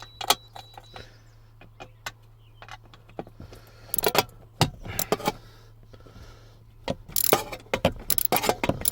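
Hand tools clicking and clinking, with metal sockets and fasteners rattling as they are handled in a car's interior. The clatter comes in clusters about four seconds in and again from about seven seconds, over a steady low hum.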